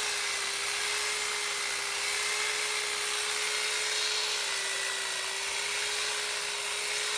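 Electric hedge trimmer running steadily as it trims a hedge: a constant motor hum with a slight dip in pitch about halfway through.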